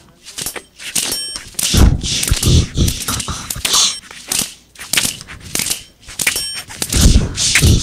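Percussive soundtrack of sharp hits in quick succession, with heavy bass booms about two seconds in and again near the end, and short buzzy electronic tones between them.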